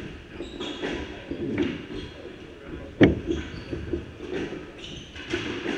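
Squash rally: the ball struck by rackets and cracking off the court walls, with the players' footsteps and shoes squeaking on the wooden floor in an echoing court. The loudest is one sharp hit about three seconds in.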